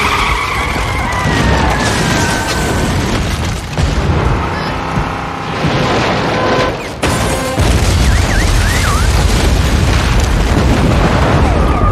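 Film sound mix of an earthquake tearing up a street: loud continuous rumbling and crashing with dramatic music over it. A sharp crack comes about seven seconds in, and a heavier, deeper rumble sets in right after it.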